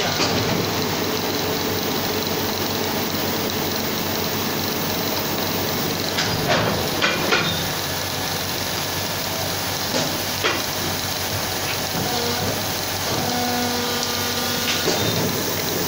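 A 5-litre plastic blow moulding machine running with a steady hissing noise. There are a few sharp knocks and clicks around six to seven seconds in and again about ten seconds in.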